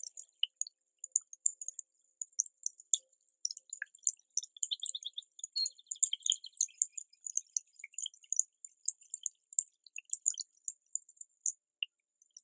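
Sparse, high tinkling plinks and ticks, chime-like, with a brief denser cluster around the middle and no low tones at all.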